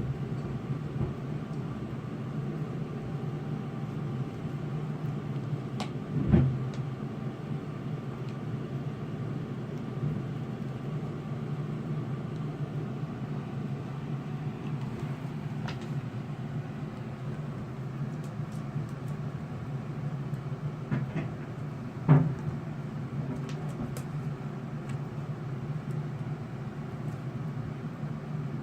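Steady low hum throughout, with two dull knocks, one about six seconds in and one about twenty-two seconds in, and a few faint clicks in between.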